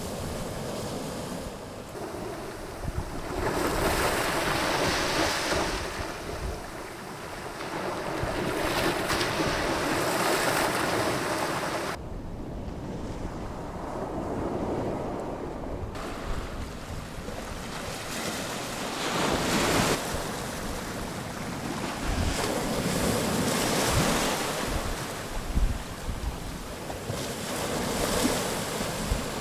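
Sea waves breaking and washing up the shore, the hiss swelling and fading every few seconds, with wind buffeting the microphone.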